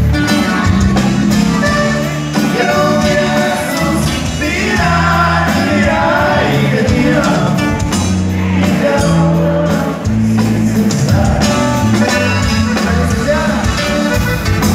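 Live norteño band playing loud: button accordion, bass and drums, with a singer's voice over them.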